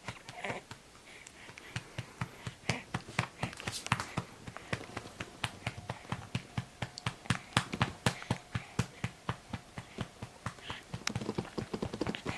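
A hand patting a two-month-old baby's back to bring up a burp: a steady run of pats about three or four a second that sound loud and resonant though they are not hard. The fussing baby gives short cries near the start and again near the end.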